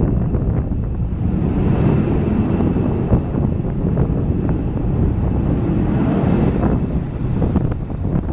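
Boeing 727-200 freighter's three Pratt & Whitney JT8D low-bypass turbofans climbing out after takeoff: a loud, steady low jet rumble with a faint high whine over it.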